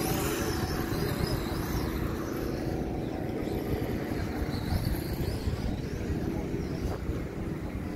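Steady low rumble with a murmur of background voices, and faint wavering high-pitched tones near the start and around the middle.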